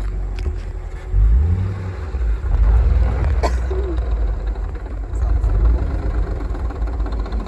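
Old Ford Mustang engine running with a deep rumble, revved up about a second in and again about two and a half seconds in. It is the oil-starved engine that has developed a rod knock.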